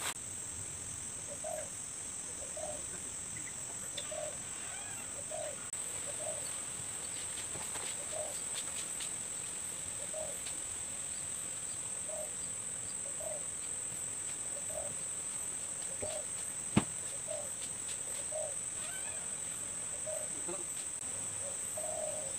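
Steady high-pitched drone of insects, with a bird giving short calls over and over at a regular interval. A few faint clicks, then one sharp click about 17 seconds in, the loudest sound.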